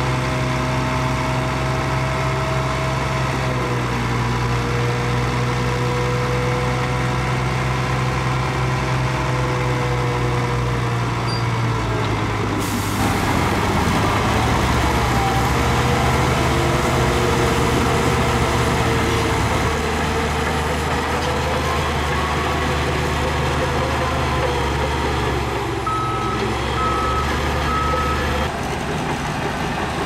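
Heavy diesel earthmoving machinery running steadily at working load, the engine note shifting abruptly about twelve seconds in. Near the end a reversing alarm beeps three times.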